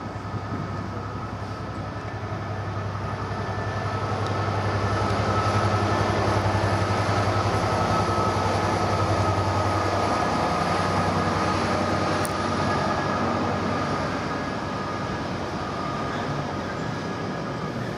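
Container freight train's wagons rolling past on the rails: a continuous rumble of steel wheels on track, with a thin steady whine above it. It swells to its loudest about midway and then eases a little.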